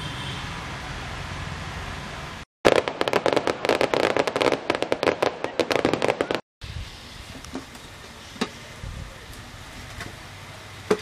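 A fireworks display: about four seconds of dense, rapid crackling and popping bangs that start and stop abruptly.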